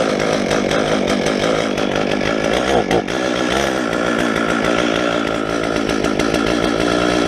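Stihl MS 391 two-stroke chainsaw running at a steady speed, neither revving up nor dropping.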